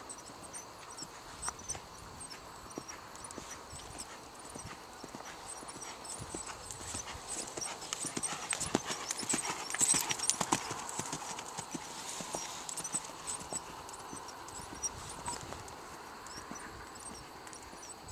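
Hoofbeats of a ridden Percheron paint gelding on a dirt arena. They grow louder as the horse passes close about ten seconds in, then fade as it moves away.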